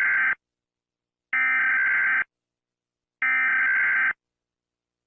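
Emergency Alert System SAME header data bursts: harsh buzzy digital screeches, each about a second long with about a second of silence between, the end of one followed by two more. They mark the start of a new alert.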